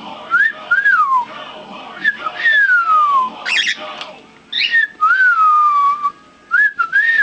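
Male lutino cockatiel whistling a wolf-whistle-like phrase four times, each a short rising note followed by a long falling glide.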